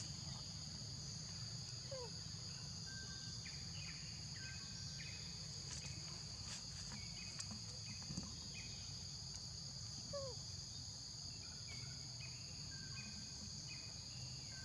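Steady, high-pitched drone of insects, such as crickets or cicadas, over a low rumble, with a few short chirping calls about two seconds in and again near ten seconds.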